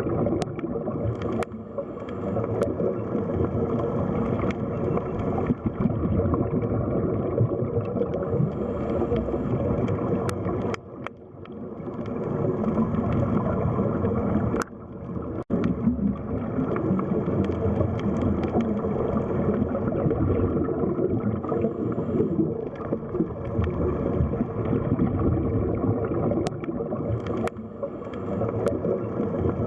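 Underwater sea ambience: a steady, muffled wash of water noise with scattered faint clicks. It drops away briefly twice, about a third of the way in and again near the middle.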